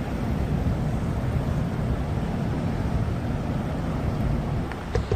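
Wind buffeting the microphone, a steady low rumbling flutter, with a brief light clink about five seconds in.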